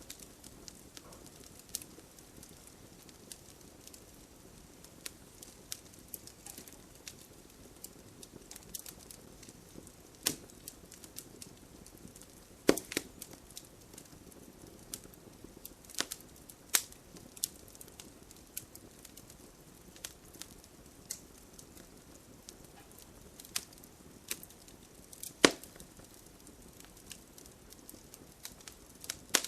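Campfire crackling: a low steady hiss of burning wood with irregular sharp pops and snaps, a few of them much louder than the rest.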